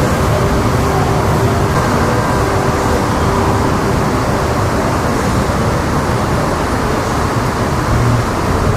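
Steady vehicle and road noise, a continuous low rumble with no breaks.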